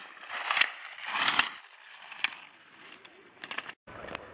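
Slalom skis scraping across hard snow as the skier carves turns, in two loud hissy swells in the first second and a half, followed by a few short sharp clicks. The sound cuts out for a moment near the end.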